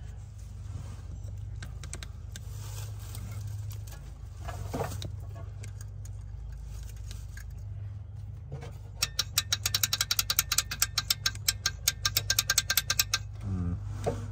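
A rapid run of sharp metallic clicks, about eight a second, lasting about four seconds and starting about nine seconds in, over a steady low hum.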